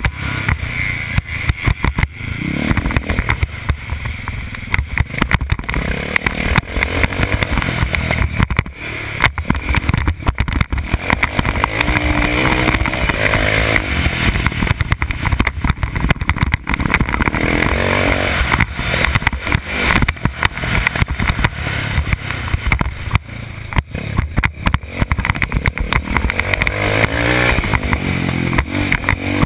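Motocross dirt bike engine running hard, heard close up from a helmet-mounted camera, its pitch rising and falling repeatedly as the rider opens and closes the throttle.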